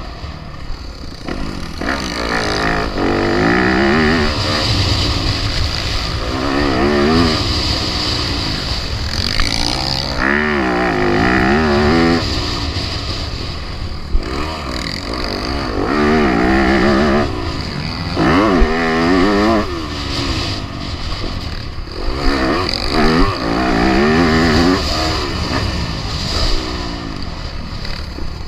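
Four-stroke motocross dirt bike engine revving hard and backing off, over and over, its pitch climbing and dropping every few seconds as it is ridden around the track.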